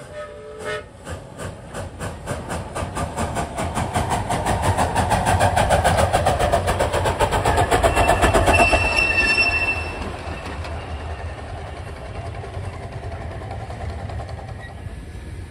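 Billy Jones Wildcat Railroad No. 2, an 18-inch-gauge live-steam locomotive, pulling away under steam after a short whistle note right at the start. Its exhaust chuffs begin about two a second and quicken into a rapid beat as it gathers speed. It grows louder as it passes close about eight seconds in, with a brief high tone, then drops back as it runs off.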